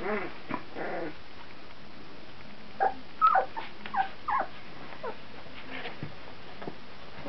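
Two-week-old Brittany puppies whimpering in short, high, downward-sliding squeaks, with a quick cluster of them about three to four and a half seconds in.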